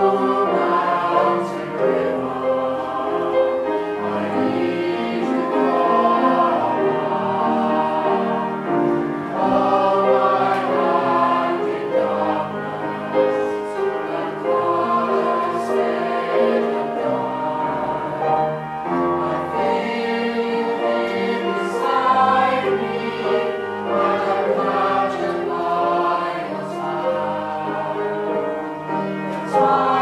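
Choir singing a song in several parts, with piano accompaniment.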